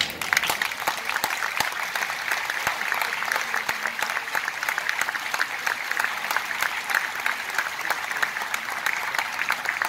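Audience applauding, breaking out suddenly and continuing as a steady dense clapping.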